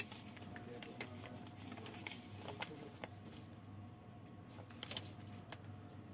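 Faint, scattered small clicks and scrapes from a bicycle lamp's plastic battery pack being handled and taken apart, over a low steady hum.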